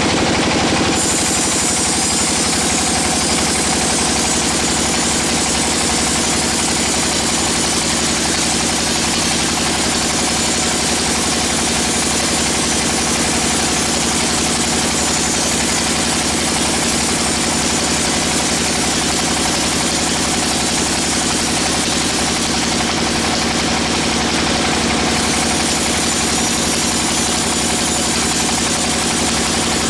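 Engine-driven band sawmill running steadily. A loud high hiss joins about a second in.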